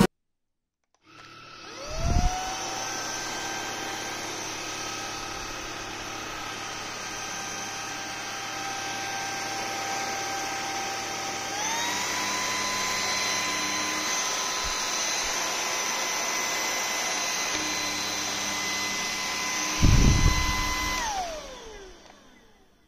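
A small electric motor starts up and runs with a steady whine and hiss. It speeds up to a higher pitch about halfway through, then winds down and stops near the end, with a low thump shortly after starting and another shortly before winding down.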